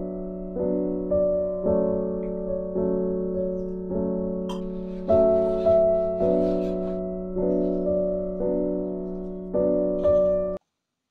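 Background piano music: slow, sustained notes struck about twice a second, cutting off suddenly near the end.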